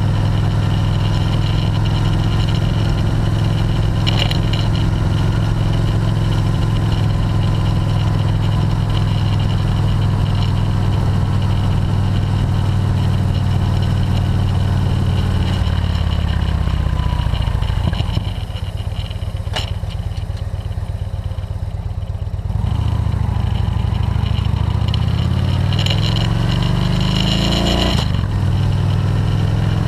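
Touring motorcycle under way, its engine drone mixed with wind rush on the microphone. About sixteen seconds in, the engine note falls as the bike slows and stays quieter for a few seconds, then climbs again in steps as it accelerates through the gears.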